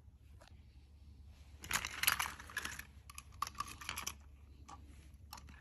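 Light clicking and rustling handling noises: a dense flurry of small clicks about one and a half seconds in, then a string of separate clicks and a few more near the end.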